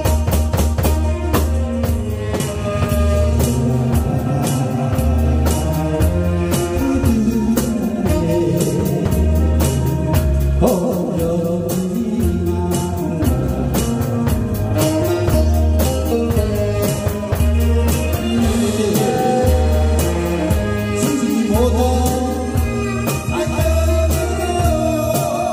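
Live band music: a man singing into a microphone over a drum kit played to a steady beat, with a strong bass line and a saxophone.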